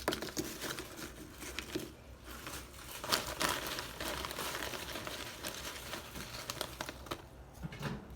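Crinkling of a foil potato-chip bag, with irregular rustles and crackles as chips are taken out of it by hand.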